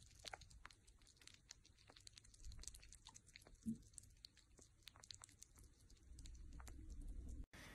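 Sugar gliders licking and nibbling at a white treat in a plastic cup: faint, rapid little clicks and tiny crunches of small tongues and teeth.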